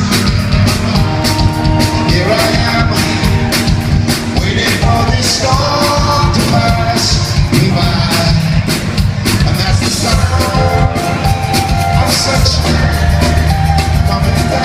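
Live band playing loud amplified music with a steady, quick drum beat and bass, and a melody line over it.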